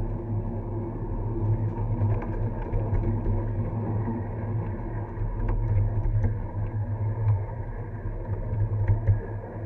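Ride-on live-steam model train cars rolling along the track: a steady low rumble of the wheels on the rails, with a few sharp clicks.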